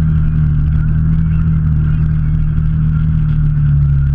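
Off-road vehicle's engine running at steady low revs while it drives along, its pitch holding constant, with some light clatter.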